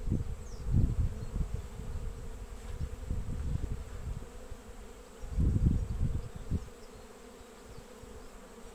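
A honeybee colony hums steadily around an open hive. Low rumbling bumps come about a second in and again around five and a half seconds, and they are the loudest part.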